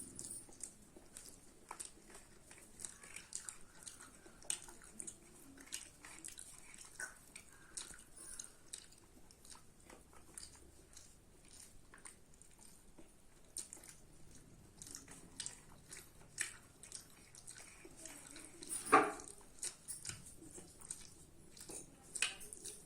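A person chewing and eating rice and chicken curry, with many small irregular wet clicks and smacks of the mouth. One louder sound stands out near the end.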